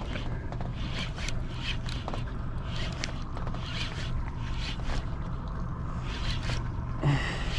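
Spinning reel being cranked while jigging, its handle turns and line giving short scraping whirs at roughly two or three strokes a second, over a steady low rumble.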